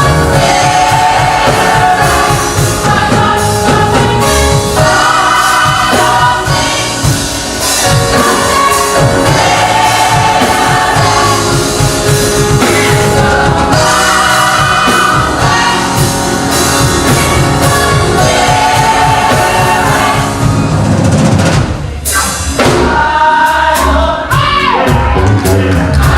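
Gospel choir singing with a drum kit and band accompaniment, loud and steady, with a short dip a little before the last few seconds.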